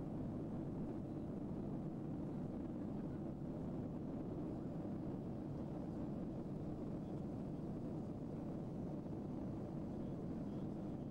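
Steady low rumble of jet airliner cabin noise in flight, the engines and the rush of air over the fuselage heard from a window seat, with no distinct events.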